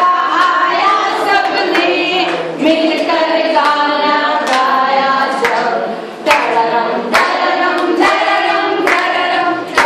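A group of women singing a song together, with sharp hand claps now and then.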